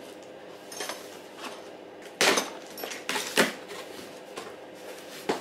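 A small cardboard box being cut open with scissors and its flaps pulled open: a few short scrapes and rustles of cardboard and tape, the loudest about two seconds in.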